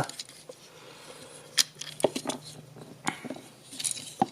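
Hard plastic clicks and taps from an action figure's parts being handled and moved, a few sharp clicks spaced out over the seconds.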